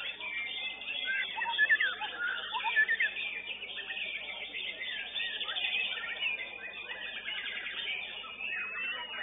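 Many competing white-rumped shamas (murai batu) singing at once: a dense chorus of quick whistled notes sliding up and down, busiest in the first three seconds and thinner after.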